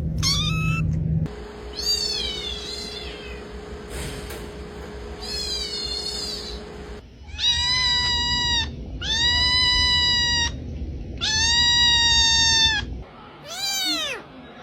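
Domestic cat meowing over and over, about seven long, drawn-out meows with short gaps between them, the loudest and longest in the second half.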